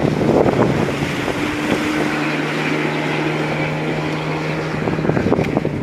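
Outboard motor of a rubber boat running at speed, with water rushing and wind buffeting the microphone. A steady engine hum stands out in the middle, and the wind gusts come harder near the end.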